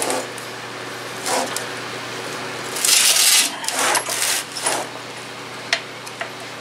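Metal parts of a torn-down Onan opposed-twin engine being handled: scattered clinks and knocks, with a couple of short scraping rustles about three and four seconds in, over a steady low hum.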